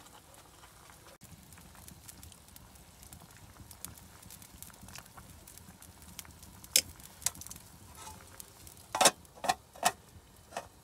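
Metal pot lid and chopsticks clinking on a cooking pot over a wood fire: a couple of light knocks past the middle, then four louder clinks near the end as the lid is set on the pot. A faint crackle of the wood fire underneath.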